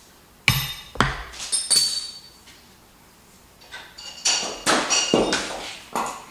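Metal clanks and clinks with a ringing tone, as steel hydraulic-cylinder parts and tools are handled and knocked together. There are a few quick strikes about half a second in, then another run of them from about four seconds in.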